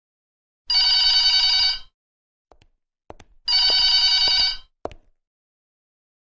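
A telephone ringing twice, each ring about a second long with a trilling multi-tone sound, and a few short clicks between and after the rings.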